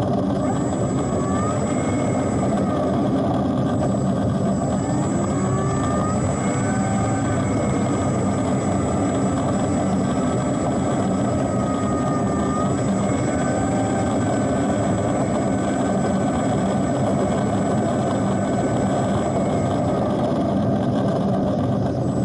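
Electric motor and propeller of an FMS 1400mm Pitts model biplane, heard from a camera on board the aircraft. It makes a steady buzz with rushing air, and faint tones in it rise and fall as the throttle changes. A thin high whine runs through most of it.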